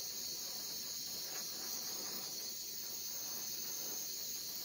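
Small handheld torch flame hissing steadily as it heats shrink tubing over soldered wire connections.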